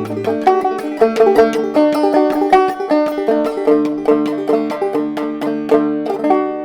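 Mulheron banjo played clawhammer style, a quick, even run of plucked notes with no singing, ending on a chord left to ring near the end.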